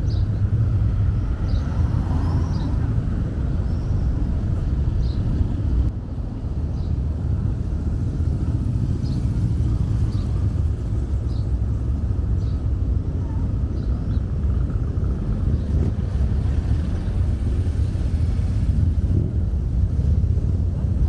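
Outdoor town street ambience: a steady low rumble, like road traffic, with short high chirps recurring about once a second.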